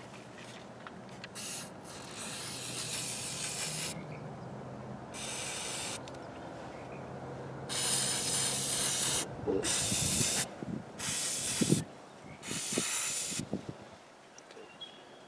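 Aerosol can of battery terminal protectant spray hissing in about seven separate bursts, the longest near the start, as it coats the battery terminal connections. A few light knocks of handling come in the second half.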